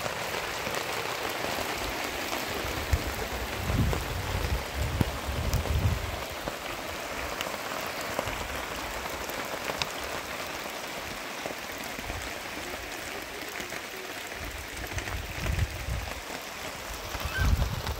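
Heavy rain falling steadily: an even hiss with scattered drop taps. A few low thumps come through about four to six seconds in and again near the end.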